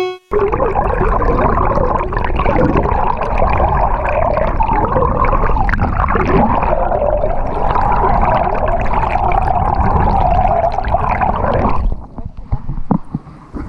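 Loud, continuous muffled rushing and gurgling of water, with a low rumble underneath, that cuts off suddenly about twelve seconds in.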